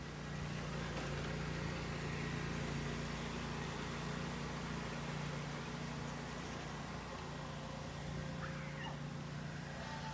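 A steady low mechanical hum, like a motor running, with a faint even hiss over it.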